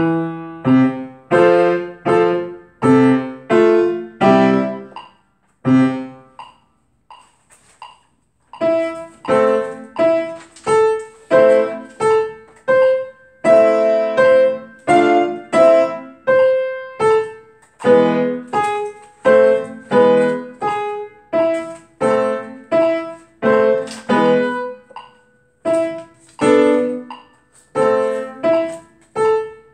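Acoustic piano being played: notes and chords struck about once or twice a second, each ringing and dying away. The playing nearly stops for a few seconds about five seconds in, then picks up again.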